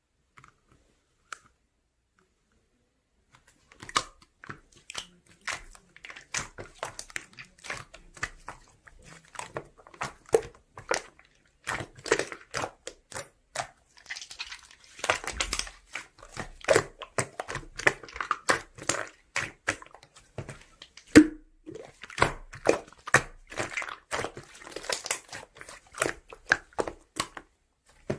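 Close, irregular crackling and clicking, like crinkling, crunching or chewing, starting about four seconds in and continuing densely.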